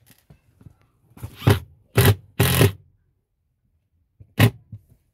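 Makita 18V cordless impact driver run in four short trigger bursts, the third a little longer than the others.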